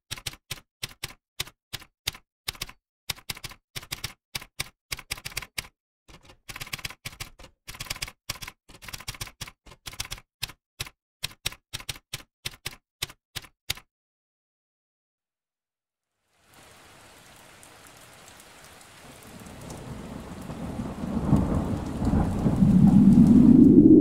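Typewriter keys clacking, one sharp click at a time, about three a second, as the text is typed out; they stop about 14 seconds in. After a couple of seconds of silence, a low rumbling noise fades in and swells much louder toward the end.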